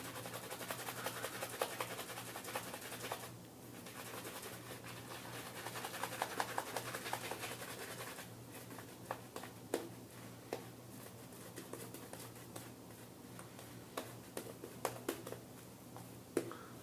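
Shaving brush working Neumann's Absolute Zero soap into lather, the wet bristles making a soft scratchy swishing. The swishing is busy through the first half, then thins to scattered sharp clicks and taps.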